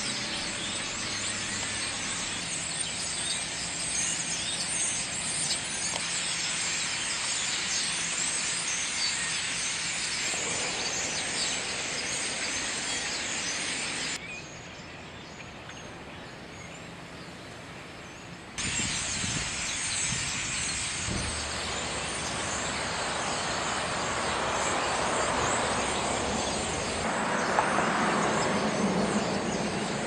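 A large flock of birds calling together in a dense, continuous chatter, with street traffic underneath. The chatter drops out for a few seconds about midway, then comes back and grows louder near the end.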